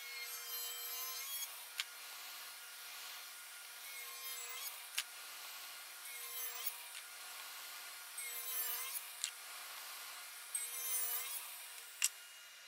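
Table saw running and cutting a hardwood block in a series of short passes about every two seconds, each pass about a second long, over the steady hum of the saw. A few sharp clicks come between the cuts.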